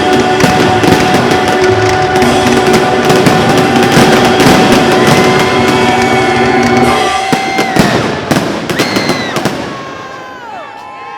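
Fireworks finale: dense crackling and banging shell bursts over the held closing chord of recorded music, which ends about eight seconds in. A few last separate bangs follow, then crowd whoops and whistles begin near the end.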